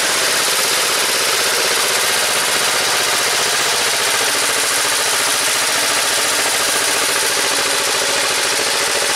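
Vladimirets T-25 tractor's two-cylinder air-cooled diesel running steadily as it pulls a seed drill through the field, with a rapid, even chugging pulse.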